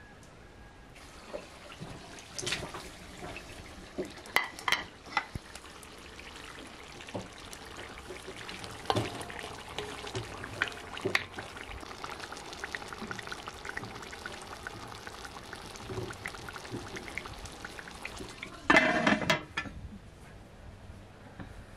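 Chopped tomatoes frying and sizzling in oil in a cast-iron kazan, stirred with a wooden spatula, with scattered sharp knocks against the pot. Near the end comes a brief, loud sound.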